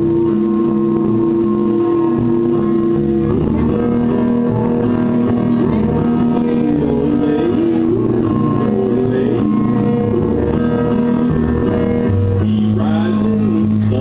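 A man sings a country song into a microphone over a karaoke backing track with guitar, played through a PA. He holds one long note, then moves into wavering, bending notes.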